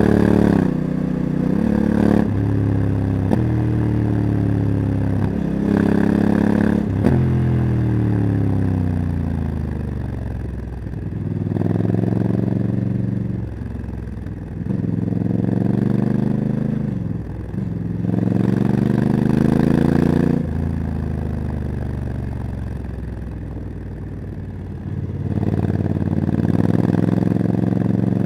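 Honda CRF1100 Africa Twin DCT's parallel-twin engine through a Leo Vince exhaust, accelerating with several quick automatic upshifts in the first few seconds, then slowing and pulling away again several times, the pitch falling and rising with each.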